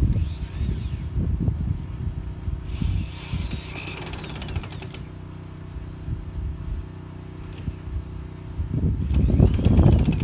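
Cordless drill driving screws through gutter hangers in short spells, its whine rising and falling, amid knocks and clunks of the gutter being handled.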